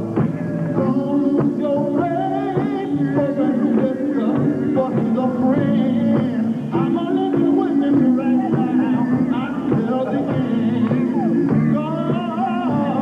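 Gospel quartet singing live with its backing band: several voices in harmony over steady instrumental accompaniment.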